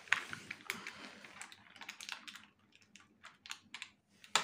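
Irregular small plastic clicks and taps from a child's toy makeup kit as pieces are worked out of its moulded plastic tray, with one sharper click near the end.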